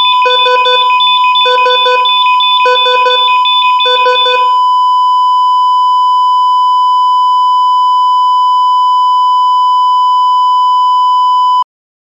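EKG heart monitor sound effect: regular electronic beeps about every 1.2 seconds, four of them, then a single unbroken flatline tone from about four and a half seconds in that cuts off abruptly near the end. The flatline marks the heart having stopped.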